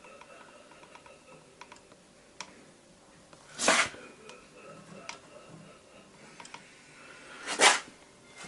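Hands working on washing-machine tub parts: scattered light clicks and taps, and two short, loud scraping sounds, about three and a half and seven and a half seconds in.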